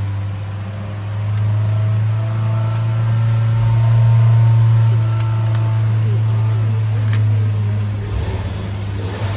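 Skoda Kodiaq's 2.0 TSI turbocharged four-cylinder petrol engine running at idle with a steady low hum, turning uneven about eight seconds in. The engine has a random multi-cylinder misfire, with fault codes for cylinders 1 to 4 and idle rpm lower than expected.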